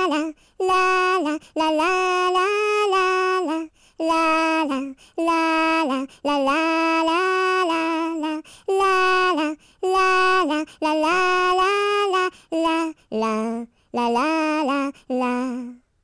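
A woman's voice singing a children's song unaccompanied, in short phrases of held notes with brief pauses between them.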